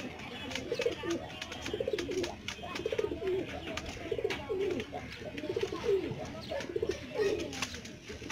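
Domestic pigeons cooing over and over, low warbling coos about once a second, with scattered sharp clicks among them.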